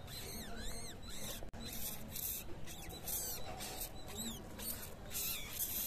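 Faint high, squeaky chirps that glide up and down in pitch, a few short calls near the start and again about four seconds in, over soft rustling and crunching of a crumbly peanut, date and sesame mixture being scooped and pressed in the hand.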